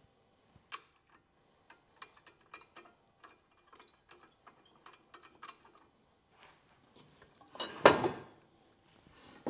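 Scattered light clicks and taps of metal parts as a table saw's rip fence is set, then a loud half-second sliding clatter about eight seconds in as the fence is pushed across the saw table.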